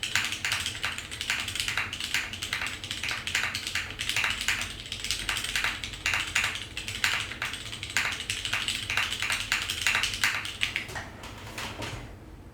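Steady fast typing on a mechanical keyboard with lubed, filmed vintage Cherry MX Brown switches, DCS keycaps and a carbon fibre plate: a dense run of key clicks that thins out near the end.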